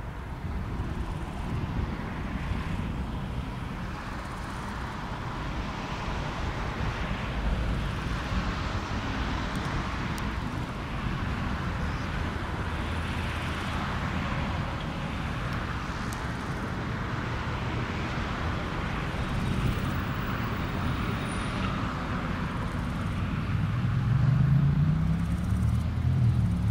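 Airbus KC2 Voyager (A330 MRTT) tanker's Rolls-Royce Trent 700 turbofans running at taxi power: a steady jet hiss over a low rumble. Near the end a low hum rises in pitch and grows louder.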